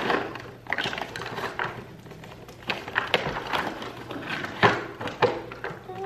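Cardboard box of a plastic dog puzzle toy being opened by hand: irregular rustling and scraping of the cardboard flaps, broken by several sharp clicks and knocks as the plastic toy is worked out of the box.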